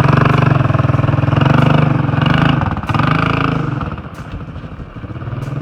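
1984 Honda ATC200M three-wheeler's single-cylinder four-stroke engine running under throttle as it is ridden, running strong. It drops off about four seconds in and picks up again near the end.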